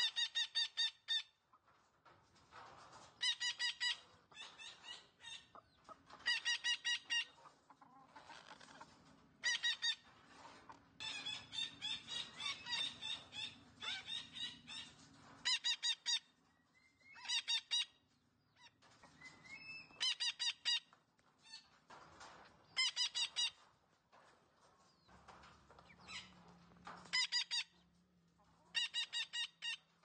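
Male red-breasted parakeet calling in harsh, nasal squawks: short bursts of rapidly repeated notes, about a dozen of them, with pauses of a second or more between.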